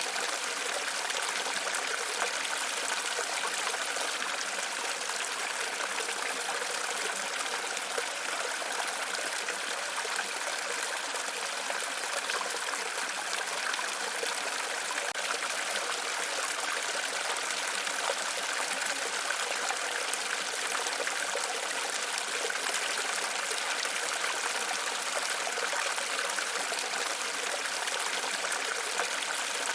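Steady rushing of a small waterfall or stream, an even splashing that stays constant.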